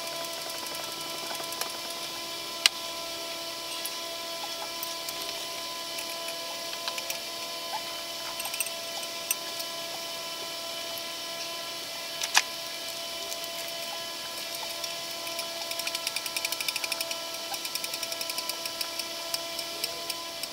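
Hand ratchet tightening the intake manifold bolts: a couple of single sharp metallic clicks, then fast runs of ratchet clicking in the last few seconds. A steady hum runs underneath.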